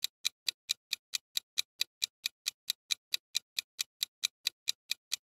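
Clock-tick countdown sound effect: crisp, even ticks at about four and a half a second, marking the thinking time before the answer is revealed.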